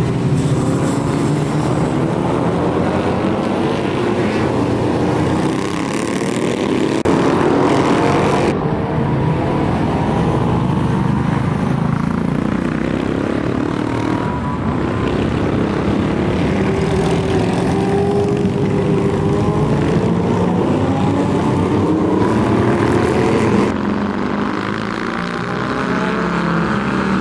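Motorcycle engines running hard on a track as bikes ride past, their pitch rising and falling with throttle and passing. The sound jumps abruptly about 8 s and 24 s in as the scene changes to other bikes.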